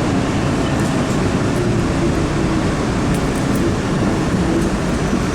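Steady rumble of a CRRC-built MBTA Orange Line subway car running on the rails, heard from inside the car, with a faint steady motor tone.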